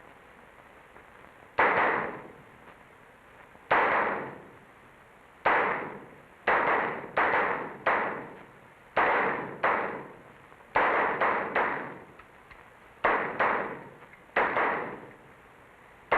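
Pistol shots from several shooters firing at once, about fifteen sharp reports at uneven intervals with some close together in quick runs, each trailing off in echo off the walls of an indoor range.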